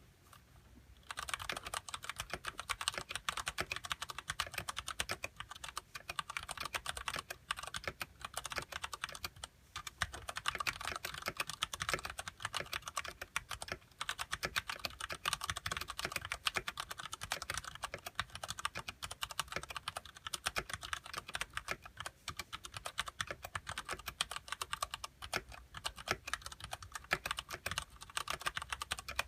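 Continuous fast typing on a Ducky Shine Mini mechanical keyboard with Cherry MX Brown switches and stock ABS keycaps, a dense stream of key clacks. It starts about a second in, with a brief pause about a third of the way through.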